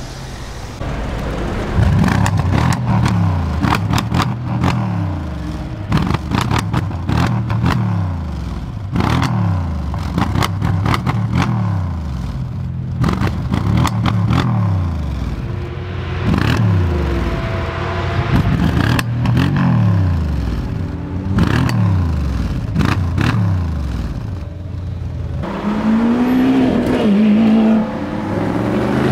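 Brabus-tuned Mercedes engine being revved over and over, about every one and a half to two seconds, each rev falling back, with the exhaust crackling and popping. Near the end the revving gives way to a wavering, different engine sound.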